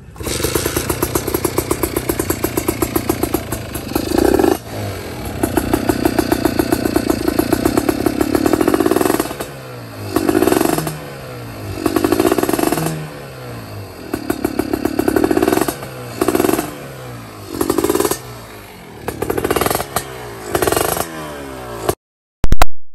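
Kawasaki Ninja 150 SS two-stroke single-cylinder engine breathing through an Arrow exhaust, running with a fast crackling beat. It is blipped over and over, with about eight short revs rising and falling back to idle. It cuts off abruptly near the end.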